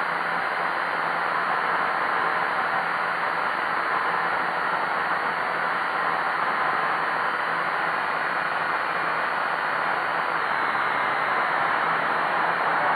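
HL 6036 quadcopter's motors and propellers running in flight, picked up by the camera mounted on the craft as a steady, even whirring hiss with a faint steady whine in it.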